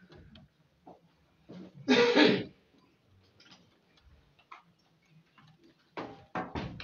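A person clears their throat once, loudly and briefly, about two seconds in, over faint scattered clicks and rustles. A few sharp clicks follow near the end.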